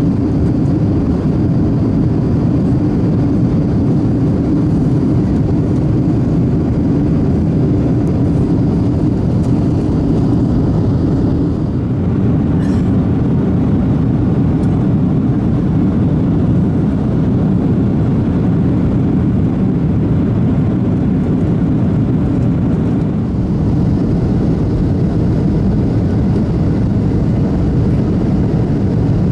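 Steady roar of a Boeing 737-800's CFM56 jet engines and rushing air, heard inside the passenger cabin. A faint high whine in it drops out about a third of the way through and comes back near the end.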